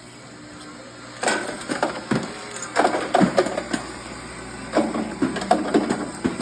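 Live cartridges clattering and clinking as they tumble through a running roller-type ammunition sorter, metal rounds knocking against each other and the machine. It starts about a second in as irregular, bunched metallic clinks over a faint steady hum.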